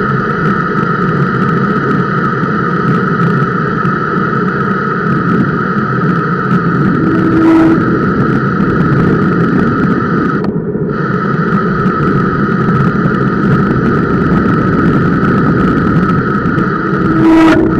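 Bicycle disc brake with Alligator semi-metallic pads rushing steadily against the rotor on a steep descent, made louder by vibration carried through the camera mount. It breaks off for about half a second near the middle. A short squeal comes about seven and a half seconds in and a louder one near the end: the Centerlock disc squealing under partial braking.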